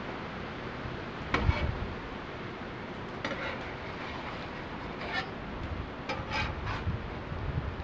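Eggs sizzling steadily in butter on a Blackstone steel flat-top griddle, with a metal spatula scraping and knocking on the griddle plate as omelets are folded and lifted; the loudest scrape comes about a second and a half in, and a run of shorter scrapes follows near the end.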